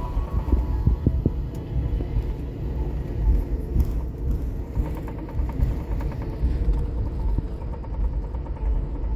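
Low, uneven rumble of an airliner rolling along the taxiway after landing.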